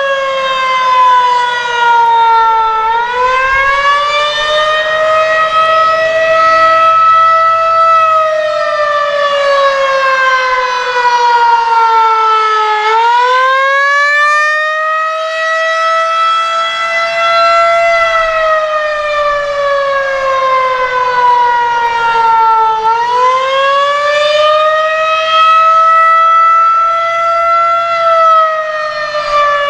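Federal Signal 2001-130 tornado siren sounding the attack signal: one loud wailing tone that rises in pitch for about five seconds and falls for about five, over and over.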